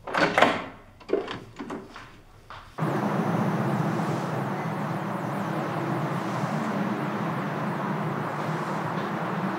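A few short, sudden sounds over a quiet room in the first couple of seconds. Then, about three seconds in, a steady outdoor urban ambience of distant traffic hum starts abruptly and carries on.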